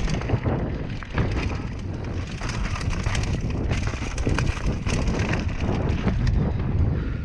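Downhill mountain bike running fast over a rough dirt trail: tyres rumbling over dirt and rocks, with frequent clacks and knocks from the bike, and wind buffeting the camera microphone.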